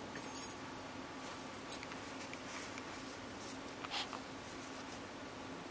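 Faint rustling and soft taps as a kitten bats at a cord against a knit blanket, over a steady hiss, with one brief scratchy rustle about four seconds in.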